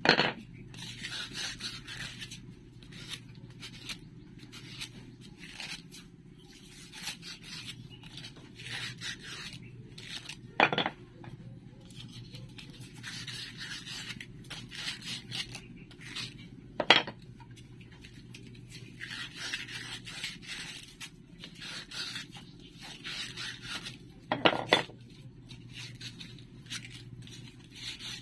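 Sandpaper rubbed by hand back and forth along a wooden dowel, a dry scratchy hiss in repeated groups of strokes. Four sharp knocks break in, about ten seconds apart.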